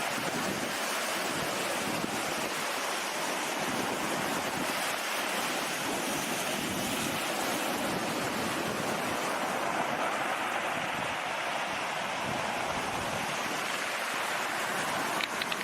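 Steady rushing noise of sea waves and wind, with a couple of brief clicks near the end.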